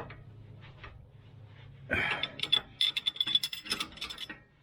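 Ratchet wrench clicking as a suspension bolt is worked: a rapid run of sharp metallic clicks starting about two seconds in and lasting about two seconds, over a low steady hum.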